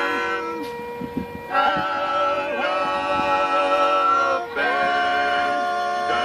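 Male barbershop quartet singing a cappella in close four-part harmony, holding long sustained chords. The sound dips briefly about a second in, and the chord changes at about one and a half seconds and again at about four and a half seconds.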